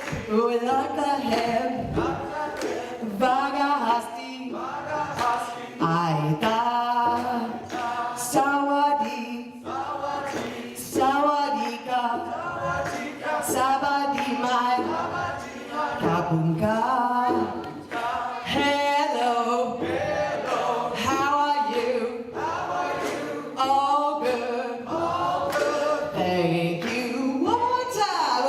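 A group of voices chanting together without instruments, in short rhythmic phrases: greetings such as 'hello, how are you, all good, thank you' recited in several languages.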